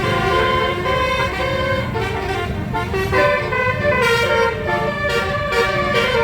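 Bus's 12-note telolet basuri musical air horn playing a melody, its notes changing every fraction of a second, over a low rumble.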